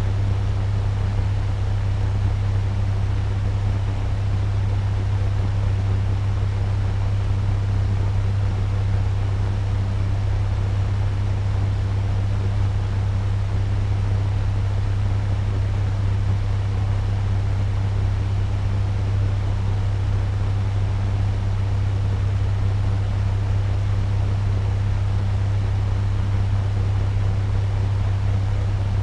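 Turbo fan running steadily at medium speed: an even rush of air over a strong low hum.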